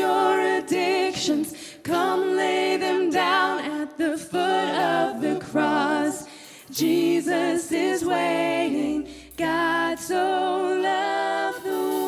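Church worship singers singing a song in harmony, phrases of held notes with vibrato and short breaks between them, with little or no instrumental backing.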